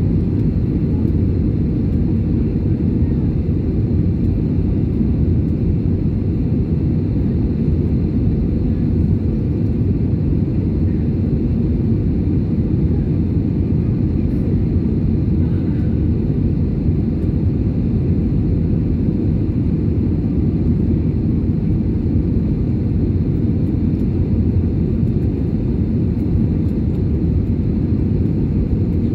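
Steady cabin noise inside an Airbus A320-family jet airliner in flight: a dense, even rumble of the engines and rushing air, heard from a window seat.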